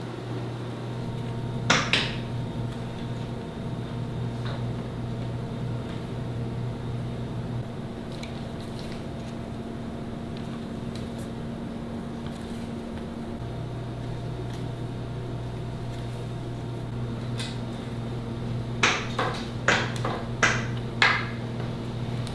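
Steady low hum with a few sharp light taps over it: two close together about two seconds in, and a quick run of five near the end.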